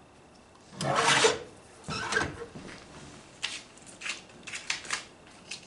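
Arm paper cutter's blade brought down, shearing through a strip of Bristol board in one loud scraping cut about a second in. Several shorter, softer scrapes and taps follow.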